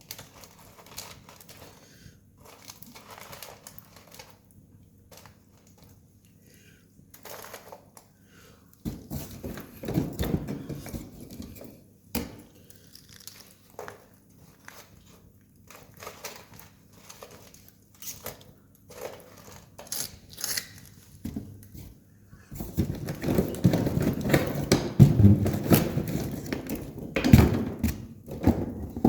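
Wood campfire crackling, with scattered sharp snaps and pops. About a third of the way in, and again for the last quarter, a louder low rustling rumble with knocks comes over the crackle.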